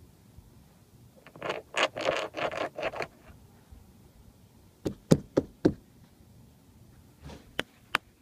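Scratchy rustling for about two seconds, then sharp knocks on a hard surface: four quick ones just past the middle, the loudest sounds here, and a few more spaced out near the end.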